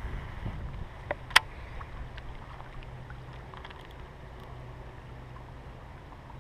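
Low steady wind rumble on the microphone, with two sharp clicks a little over a second in from the angler handling his baitcasting reel.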